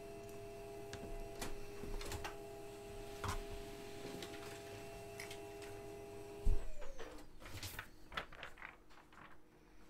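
A steady mechanical hum of several tones, with a few sharp clicks, cuts off suddenly about six and a half seconds in with a loud thump. After it come light clicks and rustling as a sealed card box is handled.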